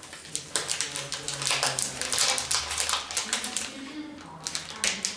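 Marabou chocolate bar's wrapper crinkling and crackling as it is torn open, rapid and dense for about three and a half seconds, then a few sharper crackles near the end.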